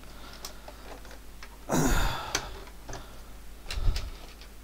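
An Atari 800's plastic case being handled and turned over on a wooden desk. About two seconds in there is a loud rush of handling noise lasting about half a second, then a few light clicks. Near the end comes a dull thump as the computer is set down upside down.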